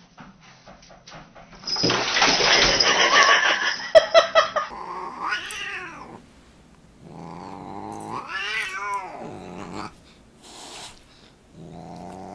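A loud, rough noise lasting a couple of seconds, then a Siamese cat yowling at a dog: three long, wavering calls that rise and fall.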